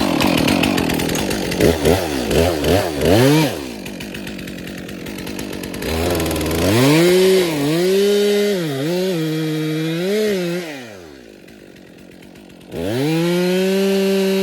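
Two-stroke chainsaw cutting through maple wood: a few quick revs early, a short idle, then held at full throttle with the pitch dipping briefly several times, back to idle, and opened up again near the end.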